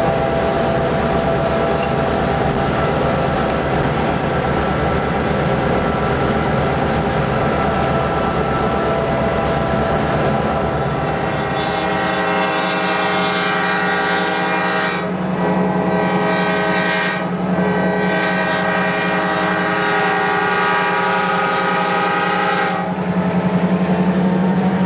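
Diesel locomotive running close up, its engine a steady drone under wind and rail noise. From about halfway the locomotive horn sounds in long blasts with two brief breaks, blown for a road grade crossing, and stops shortly before the end.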